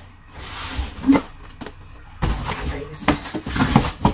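Cardboard product boxes handled inside a large cardboard shipping carton: a short rustling slide, a knock about a second in, then a run of bumps and knocks of cardboard against cardboard as a box is shifted and lifted, the sharpest knock near the end.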